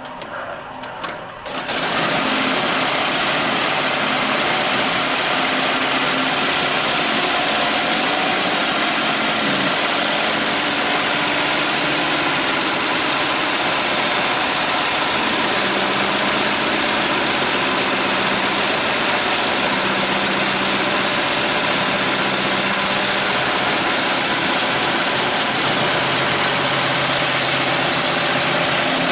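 Embroidery machine sewing at speed: a loud, steady, dense mechanical rattle of the stitching needle that starts about two seconds in, after a few short clicks of the clamped frame moving into position.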